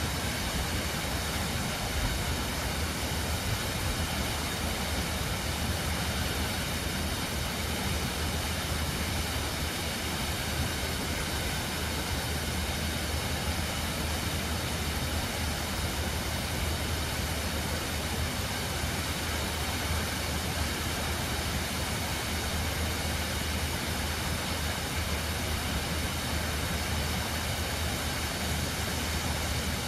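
Tempesta Falls rushing steadily in the gorge below, an even, unbroken hiss of falling water with a low rumble underneath.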